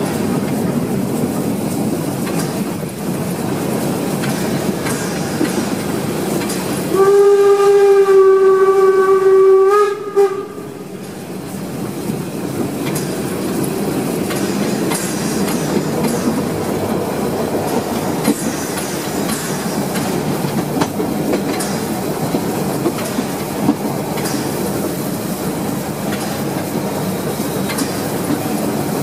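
Narrow-gauge steam locomotive on the move, heard from its front end: a steady rumble of the running gear and wheels on the rails. About seven seconds in, its steam whistle sounds one long, steady blast of about three seconds, dipping slightly in pitch as it cuts off.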